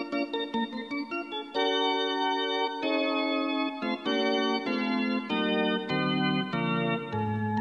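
Instrumental keyboard music in an organ voice: short chords at first, then held chords changing about once a second, with the bass line stepping down near the end.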